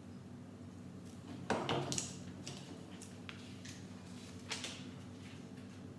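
Plastic Lego bricks clicking and knocking as they are handled, a handful of short sharp clicks with a louder clatter about one and a half seconds in.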